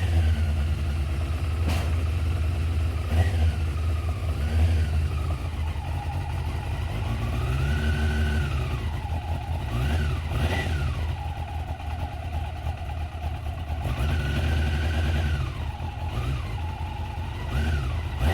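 Motorcycle engine running with a steady low rumble, revved up and back down several times.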